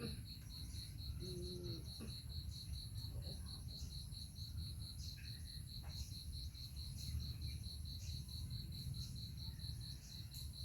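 Insects chirping steadily, a high chirp pulsing evenly about five times a second, over a low rumble.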